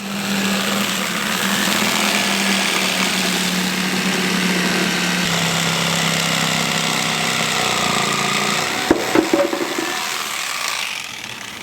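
A motor-driven machine running steadily with a loud hiss and a low hum. The hum drops slightly about five seconds in and stops near nine seconds, followed by a few sharp knocks as the noise fades.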